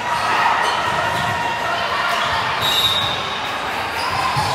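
Busy sports-hall din: a mix of voices from players and spectators, dull thuds of balls and short squeaks of sneakers on the court floor, all echoing.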